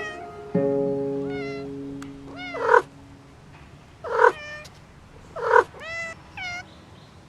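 Domestic cat meowing over and over: about six short rising-and-falling meows, the three loudest evenly spaced about a second and a half apart, the last ones fainter. A plucked-string note fades out under the first meows.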